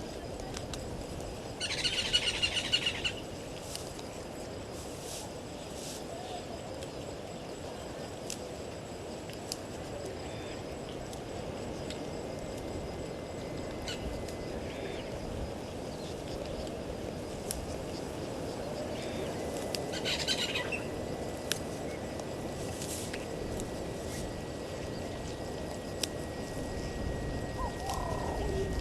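Wild birds calling over steady bush ambience: a loud, rapid chattering call about two seconds in and another about twenty seconds in, with a few faint chirps between.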